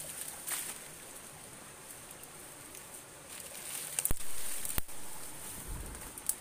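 Undergrowth rustling and brushing as someone moves through low plants, with two sharp snaps or clicks about four and five seconds in, over a steady high hiss.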